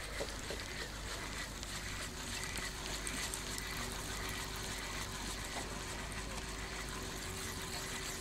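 Calm outdoor background hiss with a faint, steady engine hum, and a few light clicks near the start.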